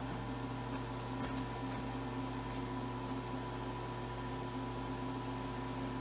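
Steady electrical hum and whine from the retrofitted Bridgeport CNC mill's servo motors and drives, powered up as it is commanded to home its axes, with a few faint ticks.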